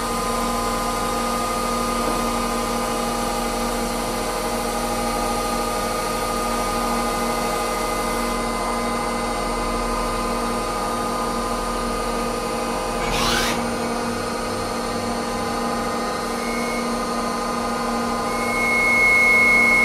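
Nomura NN-32YB2 CNC lathe running and turning a brass bar, a steady machine hum made of several constant tones. About two-thirds in there is one quick rising whine. Near the end a louder, steady high-pitched whine sets in as the tool cuts.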